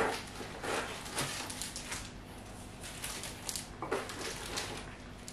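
Soft, intermittent rustling of paper packing and a plastic photo sleeve as gifts are handled in a cardboard box.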